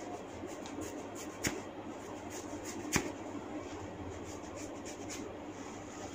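Hands rubbing and tugging at a person's hair during a scalp massage, a dry scratchy rustle, broken by two sharp cracks about a second and a half apart, the second louder.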